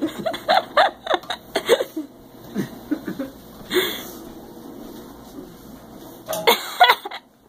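People chuckling and murmuring softly, with breathy bursts of laughter and a few light knocks in the first couple of seconds.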